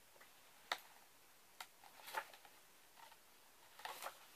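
Pages of a large illustrated book being turned by hand: a few short, soft paper flicks and rustles about a second apart, with a small cluster of them near the end.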